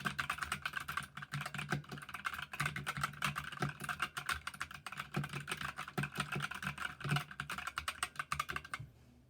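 Typing on a stock GK61 mechanical keyboard with Gateron Yellow linear switches: a fast, continuous run of keystrokes that stops near the end.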